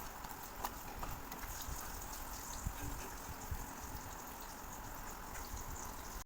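Raw chicken pieces being mixed by hand with a spice and soy-sauce marinade in a bowl: soft irregular clicks and taps over a steady hiss.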